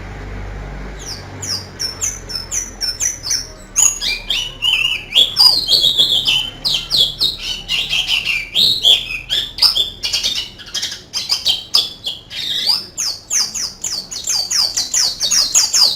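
White-eye (pleci) singing a fast, canary-like song of high chirps and trills, starting about a second in and going on without a break.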